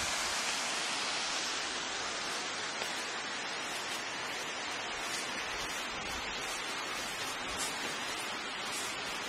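Steady rush of flowing river water, an even hiss with no separate splashes.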